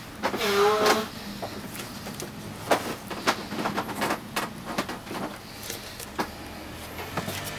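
Shoe-repair workbench sounds on a boot being resoled: a short squeal near the start, then irregular sharp taps and clicks of tools working the boot.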